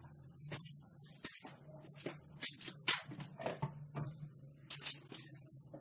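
Wood fire in a slotted log (Swedish torch) crackling, with about ten irregular sharp pops and snaps over a low steady hum.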